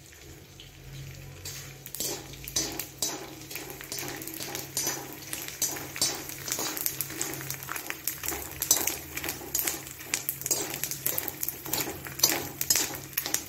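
A perforated metal ladle scraping and clinking against a steel kadhai while stirring pieces of edible gum (gond) frying in ghee, with a faint sizzle underneath. The clinks begin about a second and a half in and come quickly and irregularly.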